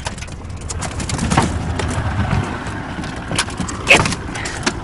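A goose honking in a few short calls over a steady low rumble, the loudest call about four seconds in.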